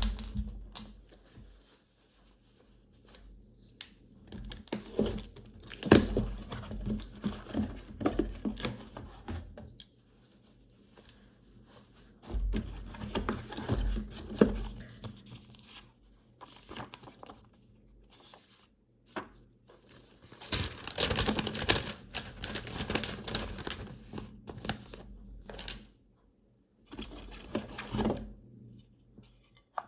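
New garbage disposal being unpacked: cardboard and plastic packaging rustling, crinkling and tearing in stops and starts, with scattered clicks and knocks as parts are handled.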